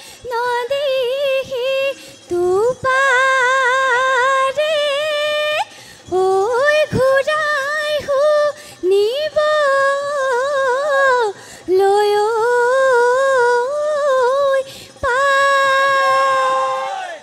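A woman singing a Bihu song into a microphone: one voice in long, ornamented held notes with a wavering pitch, broken by short pauses for breath.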